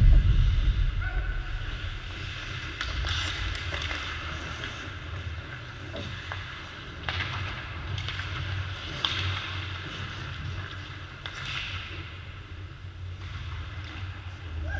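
Ice hockey practice on a rink: skate blades scraping the ice and sharp clacks of sticks and pucks every second or two, over a low rumble. A heavy low thump at the very start is the loudest sound.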